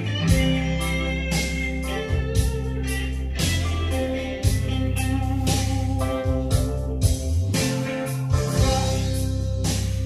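A blues-rock song with guitar, bass and a steady drum beat, played through Dahlquist DQ-20 loudspeakers driven by a Luxman LX-104 amplifier and picked up in the room by a phone microphone.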